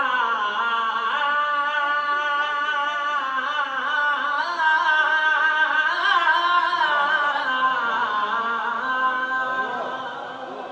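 A voice singing long, held, wavering notes, a devotional chant-like vocal with little or no instrumental backing, growing a little softer near the end.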